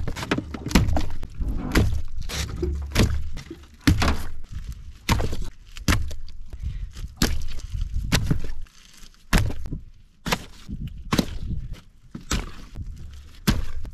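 Fish landing one after another in a plastic tote, making repeated heavy thuds and slaps at an uneven pace of about one a second.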